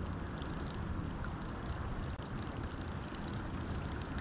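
Steady open-air river ambience: a low, even rumble with a light hiss and a few faint ticks.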